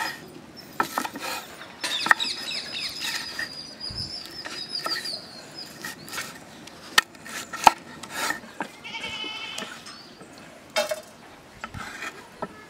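A cleaver chopping red bell pepper on a wooden cutting board: scattered sharp knocks of the blade striking the wood. High-pitched animal calls sound in the background, a long run early on and a shorter one about three-quarters of the way through.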